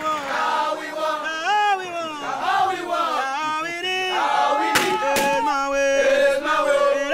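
A group of young men's voices chanting and shouting together, several pitches sliding up and down at once. Two sharp hits cut through about five seconds in.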